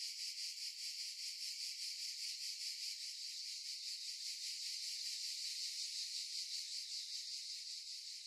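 Insects trilling: a steady, high-pitched pulsing chirr of about seven or eight pulses a second.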